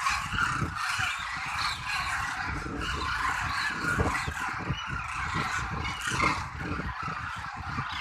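A large flock of demoiselle cranes calling together, a dense unbroken chorus of many overlapping croaking calls, with an irregular low rumble and thumping underneath.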